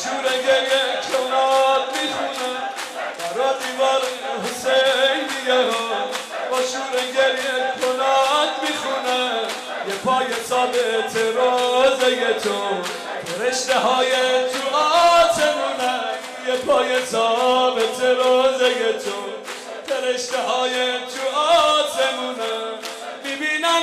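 A male maddah sings a Muharram shour lament through a microphone, to a fast, even beat of mourners striking their chests (sineh zani).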